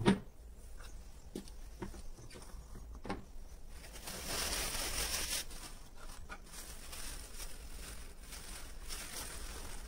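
Hands handling a bench friction tester: a few light knocks and clicks as the lever arm and weights are moved, then rustling for a second or so about four seconds in. No motor running.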